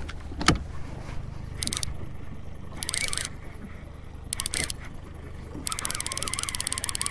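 Fishing reel clicking in rapid bursts, each lasting about a second, as a hooked striped bass is fought on trolling tackle. A steady low boat-engine hum runs underneath.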